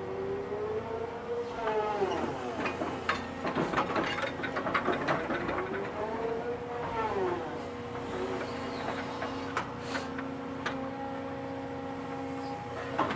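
Excavator's diesel engine and hydraulics running under load, its pitch twice rising and falling as it works. A cluster of clanks and knocks comes in the middle.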